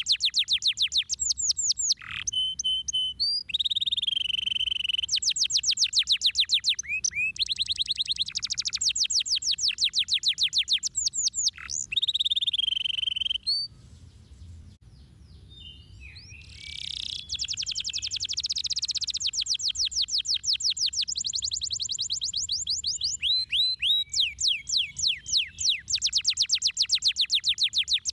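Domestic canary singing: long rolls of fast, repeated down-sweeping notes that change speed and pitch from phrase to phrase, with a break of about three seconds just past halfway.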